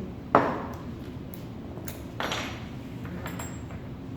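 Two sharp metal knocks with a short ring: the first, about a third of a second in, is the loudest, and the second comes about two seconds later. A few light clicks fall between them as metal machine parts are handled during assembly.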